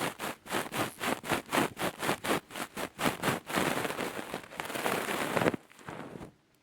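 ASMR ear picking on a microphone: quick rhythmic scratching strokes at about four a second, turning into a continuous rubbing scrape about three and a half seconds in. The scraping stops a second before the end, leaving a few faint ticks.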